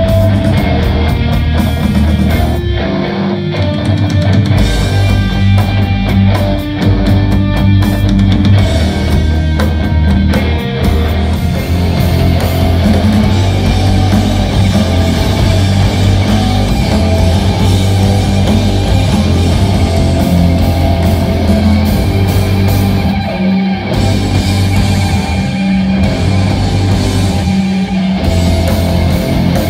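Live rock band playing loud: electric guitars, bass and drum kit, heard from among the audience. Drum hits stand out through the first ten seconds or so, then the sound becomes a denser, sustained wall of guitar.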